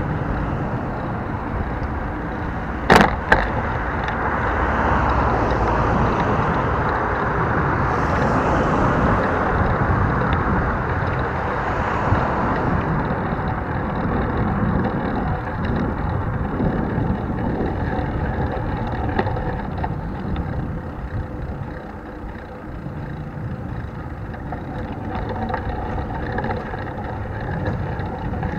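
Riding noise from a bicycle, picked up by an action camera clamped to the handlebar without its protective housing: a steady rumble of tyres and road vibration, with street traffic swelling and fading. Two sharp knocks come about three seconds in.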